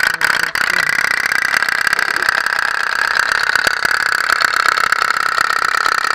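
Tin pop-pop (putt-putt) toy steam boat running, a fast steady putt-putt rattle from its boiler. The boiler is heated by a cotton wick burning cooking oil.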